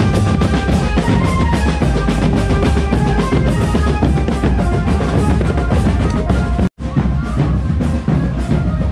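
Marching drum band playing: pounding bass drums, snare and tenor drums and cymbals on a steady beat, with a melody line above them. The sound cuts out for an instant about two-thirds of the way through, then the music resumes.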